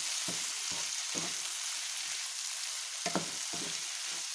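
Chicken meatballs and white radish sizzling in hot oil in a pan as they are stir-fried, with a steady hiss and several knocks and scrapes of the stirring utensil against the pan.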